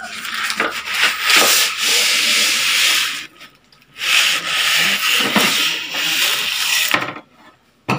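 Foam-wrapped panel being slid out of a cardboard box, foam and cardboard scraping against each other in two long stretches with a short pause between, stopping about a second before the end.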